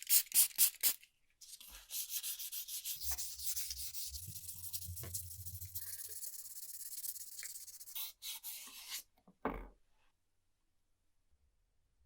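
Quick rubbing strokes at first, then a longer stretch of fast, continuous scrubbing, as in sanding or polishing a small metal part by hand, with a low rumble underneath partway through. It breaks off with a few short rubs about nine seconds in.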